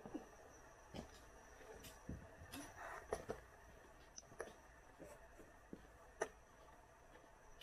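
Faint, irregular scuffs and clicks of hikers' footsteps on a forest trail, about one a second and sharpest about six seconds in, over a faint steady high tone.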